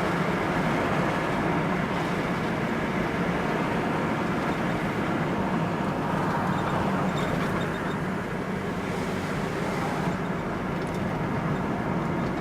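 Steady motor-vehicle noise: an engine's low drone under an even rumble of road or running noise, unchanging throughout.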